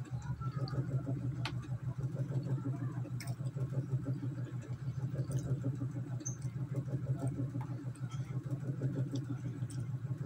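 Steady low hum of a running motor, with a few faint clicks and taps as chicken is torn apart by hand over a plate.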